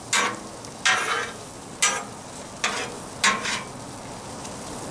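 A metal spatula scrapes five times across the steel top of a Blackstone griddle, scooping a pile of grilled onions to one side. Under the scrapes, burger patties and onions sizzle steadily.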